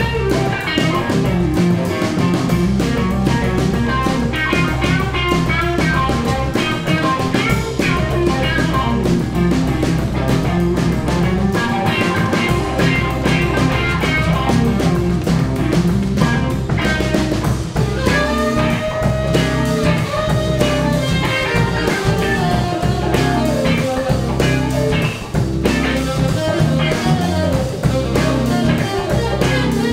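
Live rock band playing an instrumental section with no singing: a hollow-body electric guitar takes a lead solo over drum kit and acoustic guitar. Long held and gliding melody notes come in the second half, and a saxophone plays near the end.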